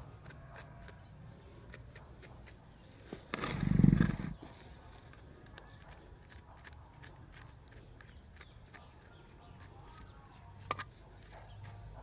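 Small metal hand tool scratching and picking at loose potting soil around cacti, giving many faint clicks. About three seconds in, a loud, low sound of unclear origin lasts about a second, rising and then falling away.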